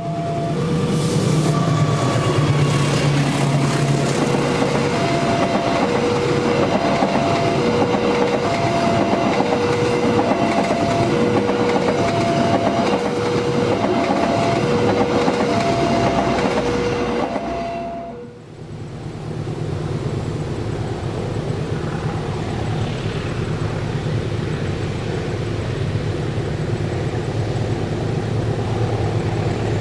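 Level crossing warning alarm sounding a two-tone alternating chime, the tone changing about once a second, over the loud rushing and wheel clatter of a passenger train passing over the crossing. About 18 s in this cuts off and gives way to a steady low engine rumble from a diesel locomotive hauling tank wagons.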